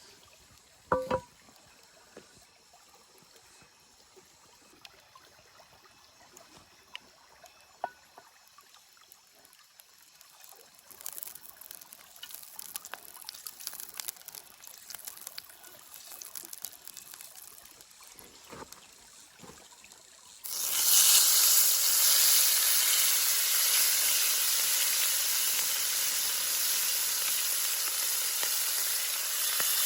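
Ribs searing in a hot pan: light crackling at first, then about twenty seconds in a loud, steady sizzle starts suddenly as the meat goes into the hot fat. Before that, a few soft knocks.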